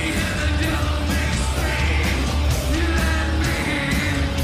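Live rock band playing loud, with a steady pounding drumbeat at about three hits a second, guitars, and a male voice singing and yelling over it.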